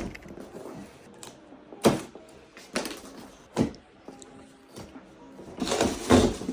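Cardboard TV box being handled and opened: a few sharp knocks and taps, then a rough scraping and rustling near the end.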